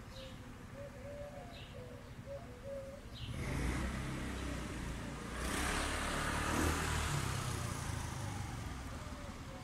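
A motor vehicle passing: a low engine-and-tyre rumble swells about a third of the way in and fades away near the end. Faint bird calls come before it.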